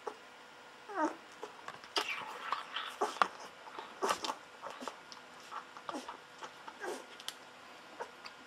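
A golden retriever puppy about two weeks old suckling milk from a feeding bottle: quick wet sucking clicks and smacks, busiest in the middle, with a few short squeaky whimpers that slide in pitch, about a second in and again near six to seven seconds.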